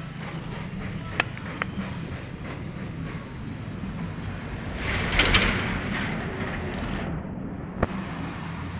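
Roadside traffic noise: a steady low engine hum, a louder rushing swell about five seconds in, and a few sharp clicks.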